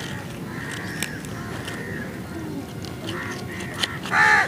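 A goose honking once, loud, about four seconds in, over a steady low background with a few faint clicks.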